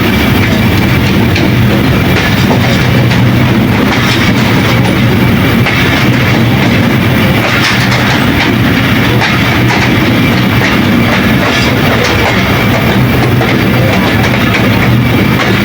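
Moving train heard from the locomotive: a loud, steady running noise with a constant low hum.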